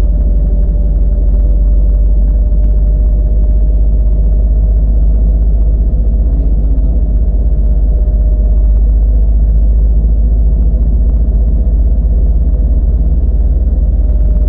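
A motor vehicle driving along a road, giving a steady low rumble with an even engine hum that holds constant throughout.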